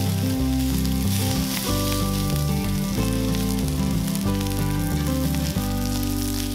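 Long beans, carrot strips and sliced shiitake mushrooms sizzling in oil in a hot cast-iron skillet as they are stir-fried, over background music with held low notes.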